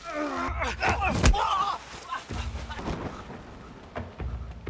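Action-film fight scene audio: a man's strained shouts and cries with hard impact hits, the loudest hit about a second in, over a low rumble.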